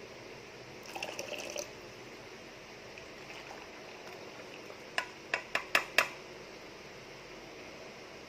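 Boiled ginger drink being strained into a glass, with kitchenware sounds: a short clatter about a second in, then five sharp clinks in quick succession about five seconds in, the loudest sounds.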